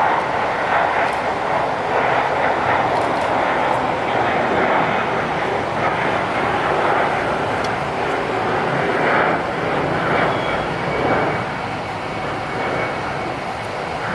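Jet airliner's engines passing close by: a loud, steady rushing roar that eases off slightly about eleven seconds in.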